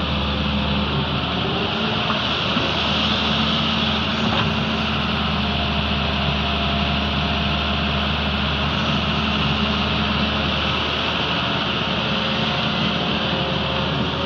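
Diesel engine of a Doosan DX140W wheeled excavator running steadily under hydraulic load as it swings and dumps buckets of sand into a dump truck.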